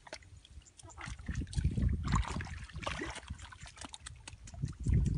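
Feet and hands squelching and splashing in wet paddy mud and shallow water, with irregular low thumps and scattered knocks.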